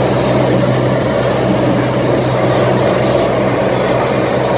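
Cessna TTX's turbocharged six-cylinder Continental engine and propeller droning steadily in flight, a constant low hum with no change in pitch or level.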